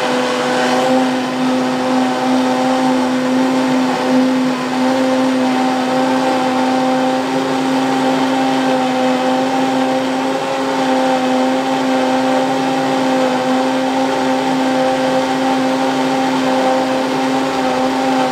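High-speed countertop blender running steadily, a loud even whirring hum, blending a watery soup base of water, arrowroot and seasonings.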